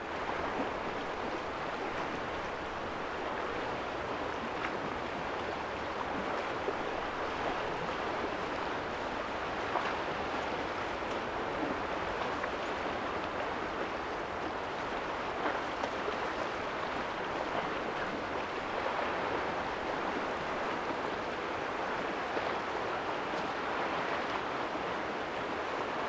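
Steady, even rushing of a running brook.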